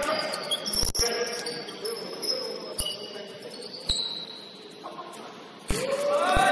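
Basketball game play: about six sharp ball bounces and thuds on the court, with brief high-pitched sneaker squeaks.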